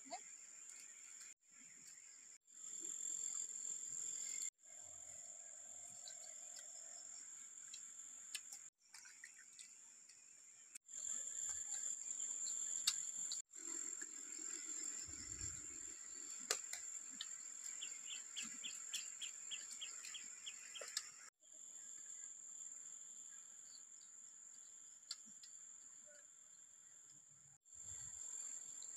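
Insects buzzing with a steady, high-pitched drone, broken off by several short silences. A quick run of evenly spaced chirps comes about two-thirds of the way through.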